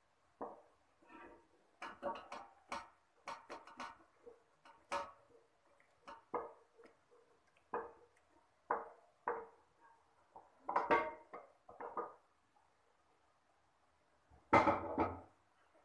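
A metal utensil clinking, knocking and scraping against a metal cooking pot in irregular strokes, each with a short ring, as food is added into the pot. The loudest clatter comes near the end.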